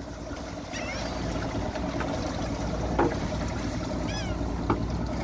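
Cast net full of live bait pilchards being emptied into a fibreglass boat livewell: scattered sharp taps of net weights and flapping fish against the hull over a steady low hum of the running aerator pump.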